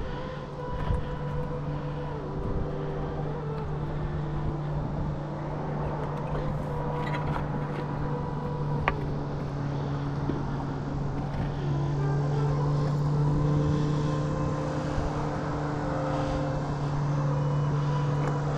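An engine droning steadily, its pitch shifting slightly now and then.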